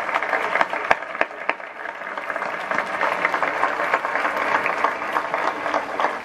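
Crowd applauding: a dense, steady patter of many hands clapping, with a few louder single claps standing out in the first second and a half.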